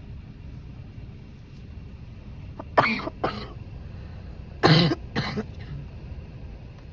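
Two bouts of sharp, explosive breath blasts, each a pair of quick bursts, about three and five seconds in.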